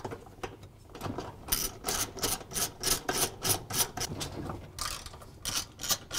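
Socket ratchet clicking rapidly, about five clicks a second, as it spins out a half-inch bolt holding a direct-drive washer's gear case. The clicking starts about a second in and pauses briefly near the end before going on.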